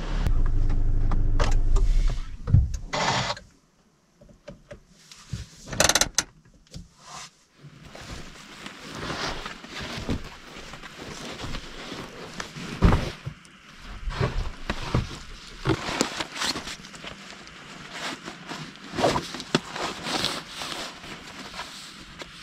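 A car engine runs with a steady low hum and is switched off about three seconds in. A sharp latch-like click comes a few seconds later. Then come irregular rustling, knocking and thumps as folding mats and a bag are handled and laid out in the car's cargo area.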